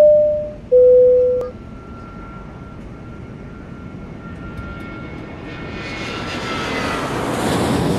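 Two-tone airliner cabin chime, a higher tone then a lower one, followed by jet-engine noise with a thin whine, growing steadily louder toward the end as the engines spool up.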